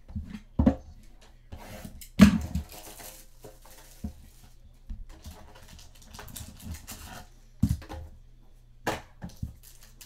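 Sports card packs and wrappers being handled and torn open on a table: crinkling and rustling, with several dull knocks, the loudest about two seconds in.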